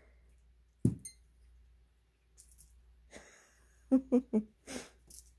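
A single soft thump about a second in, then a quick run of three short voice sounds and one more near the end.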